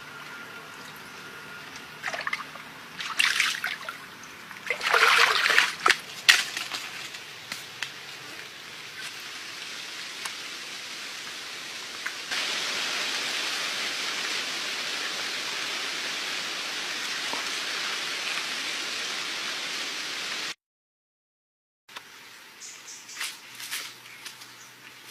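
Splashing and sloshing of shallow, muddy water as a plastic jerrycan is pushed down into it, loudest about three to six seconds in. Later a steady rushing hiss runs for several seconds and cuts off suddenly, followed by a few soft rustles.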